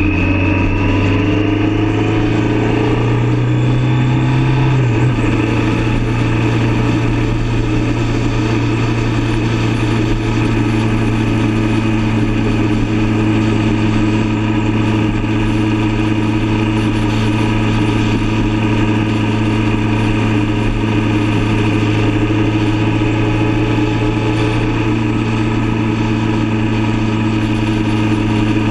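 Motorcycle engine running under way. It rises in pitch for the first few seconds, drops suddenly about five seconds in at a gear change, then holds steady at cruising speed, with wind noise throughout.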